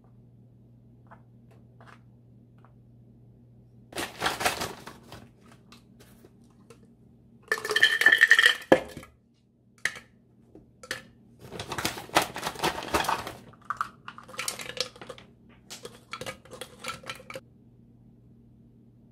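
Bursts of clinking and clattering of dishes and containers, among them strawberries tumbling into a glass jar, with quiet gaps between the bursts. A faint steady hum runs underneath.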